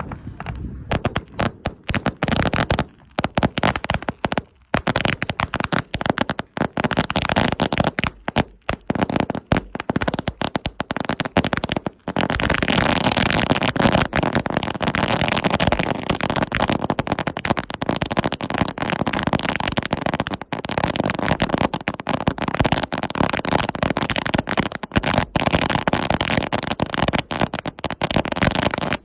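Firecrackers going off in rapid, dense bangs, with short gaps at first and an unbroken crackle from about twelve seconds in.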